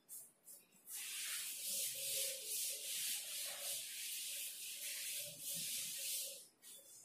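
A duster wiping chalk off a blackboard in quick back-and-forth strokes: a steady scratchy rubbing that starts about a second in and stops shortly before the end.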